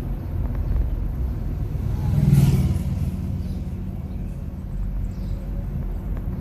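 Road and tyre rumble of a moving 2021 Nissan Leaf electric car, with no engine note. A brief louder swell with a low hum comes a little over two seconds in.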